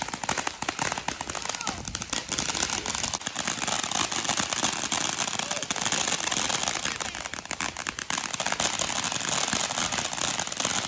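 Fireworks crackling: a dense, rapid run of small pops and sizzle, continuous and loud, with no single large bang.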